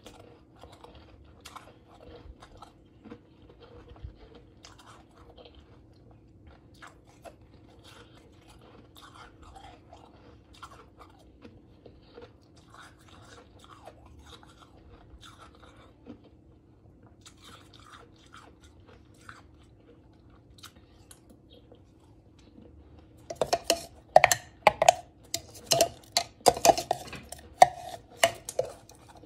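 Someone chewing powdery blended ice. The crunching is soft and faint for most of the time, then turns loud and crisp, several crunches a second, over the last six seconds.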